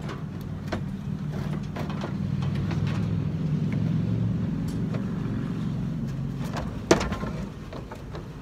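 Clattering and scraping as a small wheeled pressure washer is handled in a pickup bed, ending in one sharp, loud knock about seven seconds in as it is set down on the bed. A steady low engine hum, as from an idling vehicle, runs underneath.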